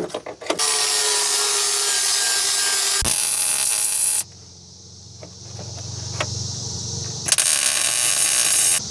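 A power tool running at full speed in two loud stretches, the first about three and a half seconds long and the second about a second and a half. Between them is a quieter steady whirr.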